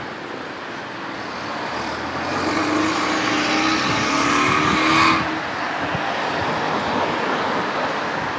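A car driving past on the street, getting louder over several seconds and dropping off sharply about five seconds in, over a steady hiss of street noise.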